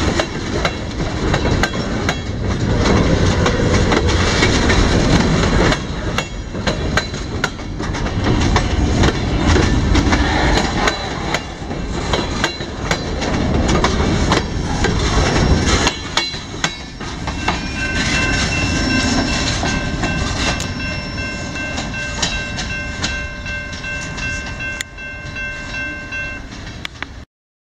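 Freight cars rolling past at low speed, their wheels rumbling and clicking over the rail joints. About 16 s in, the rumble eases as the last cars move away, and a steady high ringing tone holds until the sound cuts off just before the end.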